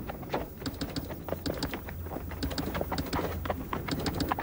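Telegraph sounder clicking out an incoming Morse message in quick, uneven runs of sharp clicks over a low steady hum.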